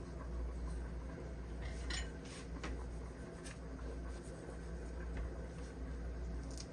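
Hand-squeezing lemons with a bowl: scattered light clicks and knocks of the bowl and utensils, with sharper taps about two seconds and three and a half seconds in, over a steady low hum.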